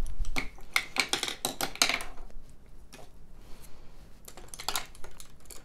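Makeup brushes and small makeup tools clattering and clicking against each other as they are rummaged through and picked up. A dense run of clicks comes in the first couple of seconds and a few more near the end, with a dull bump at the very start.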